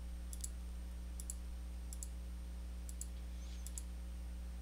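Computer mouse clicking: a short click or quick double click about once a second, over a steady low hum.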